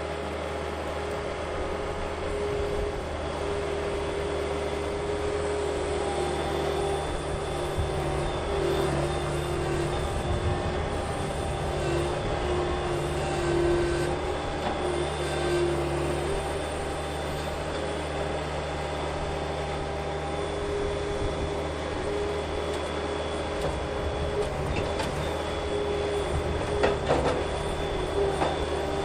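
Skid steer engine running steadily under load while working the XTractor attachment to pull a tree, its pitch wavering a little. A few short sharp cracks come near the end.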